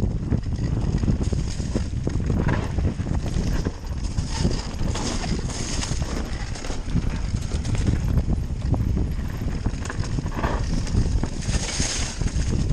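Mountain bike descending a rough dirt trail: tyres rumbling over the ground and the bike's chain and parts clattering in quick, irregular knocks.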